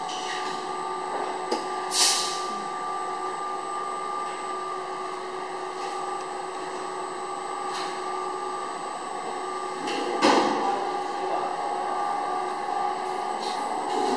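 Electric motors of a 10-litre vacuum emulsifying mixer running with a steady whine. A short hiss comes about two seconds in. A louder burst of noise comes around ten seconds in, after which the machine runs a little louder.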